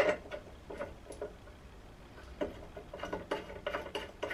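Aluminium bearing block clacking into place in the milled slot of an aluminium gantry side: a sharp metal click at the start and a few light taps. From about halfway, a run of light, regular metallic clicks, about four a second.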